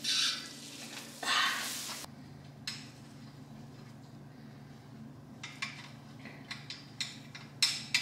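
Two loud bursts of rustling in the first two seconds, then scattered light clicks and knocks as the sections and base of a large artificial Christmas tree are handled, over a steady low hum.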